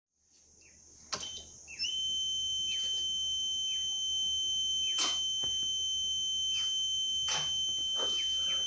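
Steady, high-pitched electronic warning buzzer of a Dennis Trident bus, sounding continuously from about two seconds in. Several sharp clicks come over it.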